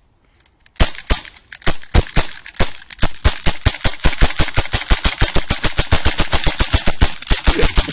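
Heckler & Koch USP CO2 air pistol firing a long string of rapid shots. It starts at a few shots a second and quickens to about eight a second.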